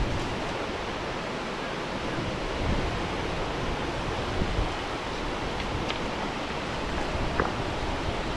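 Steady rush of water spilling over a small weir, with wind buffeting the microphone now and then.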